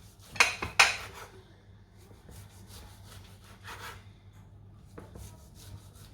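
A serving utensil scraping against a dish while food is shared out: two sharp scrapes close together about half a second in, then softer scraping and light clatter.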